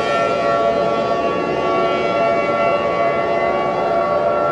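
Civil defense siren wailing at a steady pitch, several tones sounding together without rising or falling, as the sound bed of an emergency alert broadcast.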